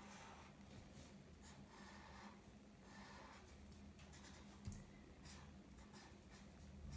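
Faint scratching of a felt-tip marker stroking on paper, in separate short strokes, over a steady low hum.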